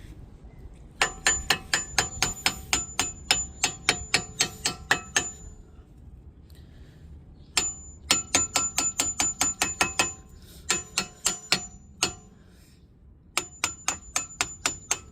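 Hammer tapping metal: quick light taps at about four a second, in four runs with short pauses, each tap ringing briefly. A new brake pad is being tapped into its front caliper so it slides into place.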